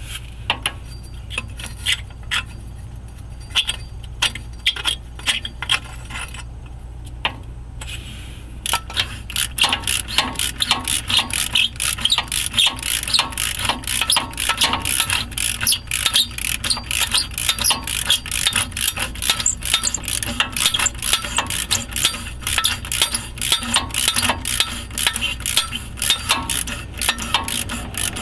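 Metal hand tools clinking against the exhaust hardware, then, from about nine seconds in, a hand ratchet wrench clicking fast and steadily as it turns the exhaust collector bolts.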